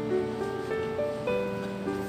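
Background music: a melody of held notes changing every half second or so.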